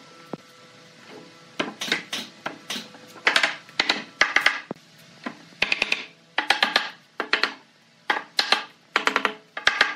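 Wooden mallet striking a pine bed-frame joint, driving an L-shaped piece down onto the post. The sharp wooden knocks start about one and a half seconds in and come in quick clusters of several blows each.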